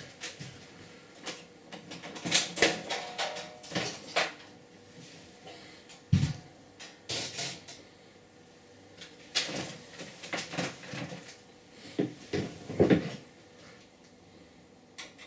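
Computer case covers being taken off and handled: an irregular run of clicks, knocks and scrapes.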